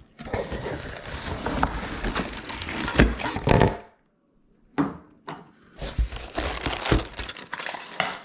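Cardboard box and packing material rustling and crinkling, with knocks, as a boxed garbage disposal unit is pulled out. The sound cuts off abruptly about four seconds in, then scattered clicks and rustling pick up again.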